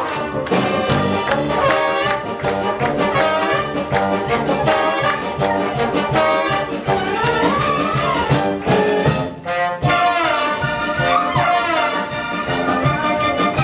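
Brass-led instrumental music with trumpet and trombone over a steady beat: an instrumental passage of an operetta song's accompaniment.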